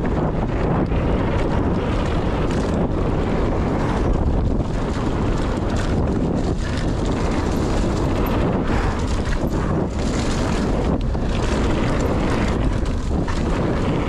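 Wind buffeting the microphone on a fast mountain-bike run, a steady loud rush, broken by frequent short knocks and clatter from the bike going over rough trail.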